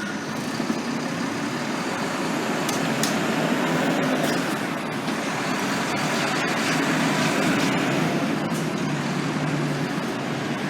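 A vehicle passing close by: a steady, broad rumble that builds to its loudest midway and eases slightly near the end, with a few sharp clicks.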